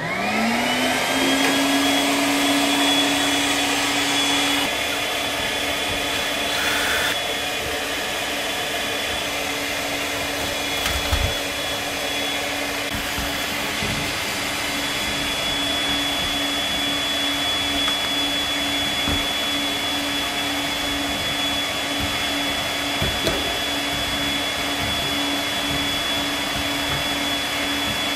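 Duct cleaning vacuum unit switched on: its motor spins up with a rising whine within about a second, then runs steadily with a low hum and a high whine.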